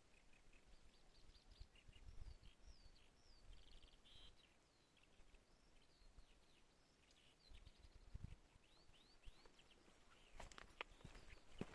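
Faint birdsong from several small birds: a busy mix of short chirps, quick trills and whistled notes that sweep downward. A few sharp clicks come near the end.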